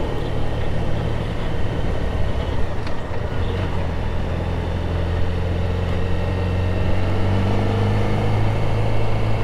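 Motorcycle engine running steadily as the bike rides slowly down a street, its note rising gently over the last few seconds.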